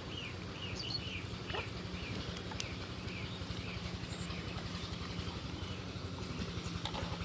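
Small birds chirping in short calls, most of them in the first second or so, over a steady low mechanical hum and rumble.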